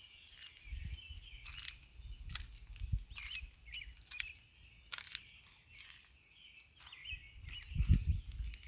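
Chef's knife chopping fresh green onions and coriander on a plastic cutting board: irregular knocks of the blade against the board, with heavier thumps near the end.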